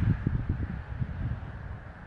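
Wind buffeting the microphone in gusts, easing off toward the end, over the steady hiss of highway traffic passing below.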